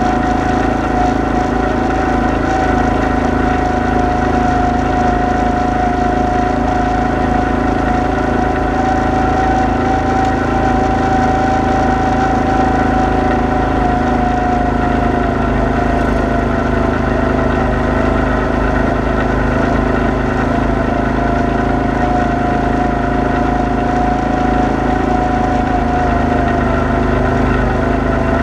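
ATV engine running at a steady pace, with a constant whine that drops slightly in pitch about halfway through.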